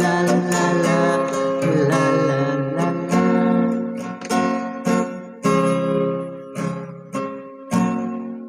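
Acoustic guitar strumming the closing chords of an unplugged song. The strums thin out to single chord strokes about every half second to a second, then the last chord rings and fades away.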